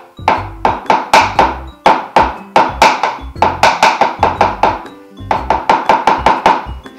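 Background music: a quick, bouncy tune of short notes that die away fast, about four or five a second, over a repeating bass line, with a brief break about five seconds in.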